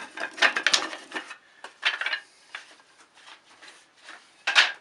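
Small cut wooden hive-frame bottom bars clattering and knocking together as they are handled, in an irregular run of clicks and knocks with one louder knock near the end.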